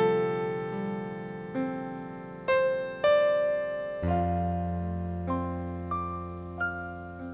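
Slow background piano music: single notes struck one after another and left to ring, with a deep bass note entering about four seconds in.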